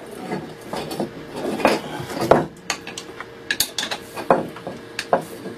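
Hammer tapping on the metal fitting that holds the blade at one end of a wooden frame saw. It gives a run of many sharp, unevenly spaced metallic knocks, the loudest a little over two seconds in.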